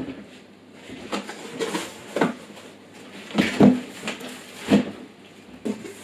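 A cardboard packing box and removed PC case panels being handled, giving a series of knocks and clunks. The loudest comes about three and a half seconds in, with another near five seconds.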